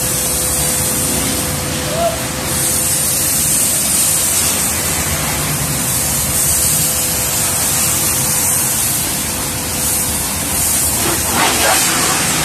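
High-pressure water jet spraying from a hand-held washer nozzle onto a soapy car to rinse it: a steady loud hiss, with a steady hum underneath.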